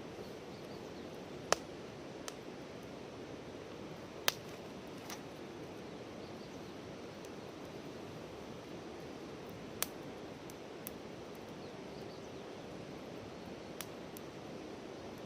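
Wood campfire crackling: a steady low hiss with sharp, irregular pops from the burning firewood, the loudest about one and a half, four and ten seconds in.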